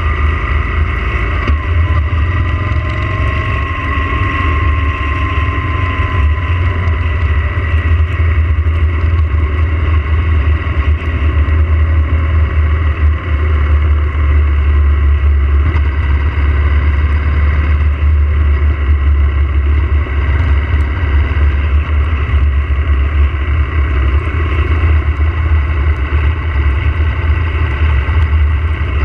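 Yamaha motorcycle being ridden at a steady cruising speed, its running note heard with a heavy, steady low rumble. A few seconds in, the engine note lifts slightly and then eases off.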